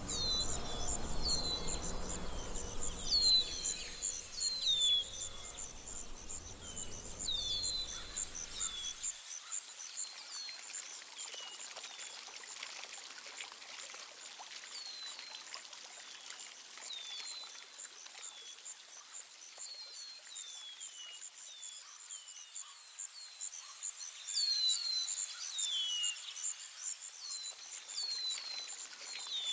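Outdoor nature ambience: a continuous high, fast-pulsing insect trill with repeated short bird chirps that fall in pitch. A low rushing noise underneath cuts off abruptly about nine seconds in.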